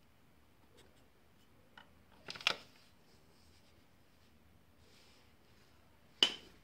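Handling noise of hands and tools around the clutch: a few faint ticks, a quick cluster of sharp clicks and knocks about two and a half seconds in, and one loud sharp click near the end.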